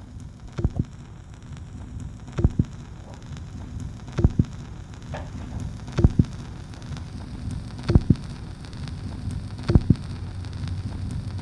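Vinyl record surface noise from a turntable stylus riding the groove: steady crackle and hiss, with a sharp double pop about every 1.8 seconds, once per turn of a record at 33⅓ rpm, from a scratch or blemish on the disc. No music is heard.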